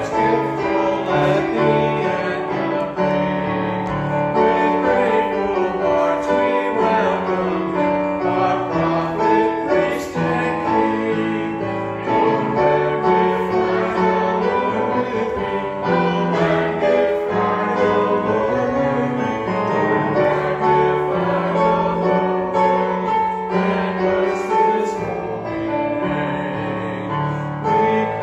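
Hymn singing by a group of voices with keyboard accompaniment, in long held notes that move step by step.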